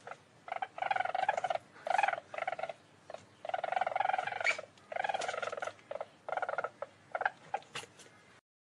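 Least weasel calling in a string of about ten rapid, trilling bursts, some short and some over a second long, with brief pauses between them.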